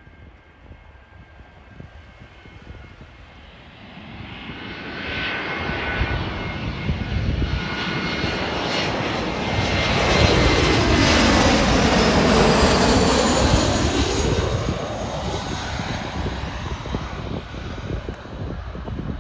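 Jet airliner passing close by: engine noise builds from about four seconds in, is loudest just past the middle, then fades, with a high whine dropping in pitch as it goes past.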